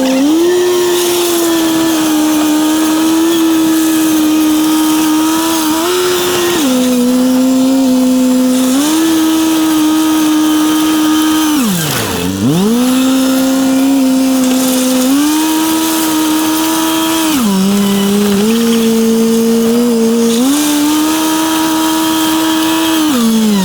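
A motor running loud and steady, its speed stepping up and down between a few held levels, with a sharp drop almost to a stop and a quick rise back about halfway through.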